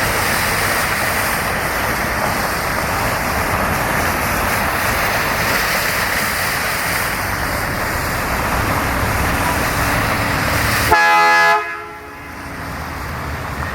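A steady rushing noise, then a vehicle horn honks once briefly about eleven seconds in, after which the rushing noise drops away.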